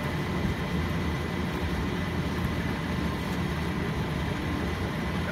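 A steady low engine drone, unbroken, with a faint constant high tone over it.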